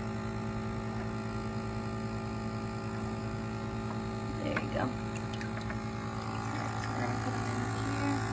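Aquarium air pump (bubbler) running with a steady electric hum while it feeds air through an airline tube into the fish's acclimation bucket.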